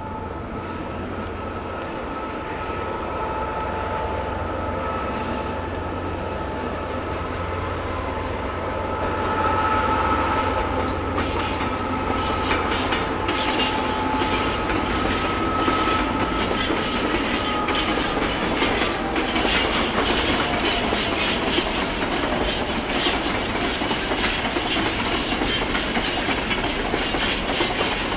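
Class 66 diesel-electric locomotive with its two-stroke V12 diesel engine running under load as it moves slowly through the yard: a steady low drone with a high steady whine that fades away about two-thirds through. From about ten seconds in, wheels clatter in quick clicks over rail joints and pointwork.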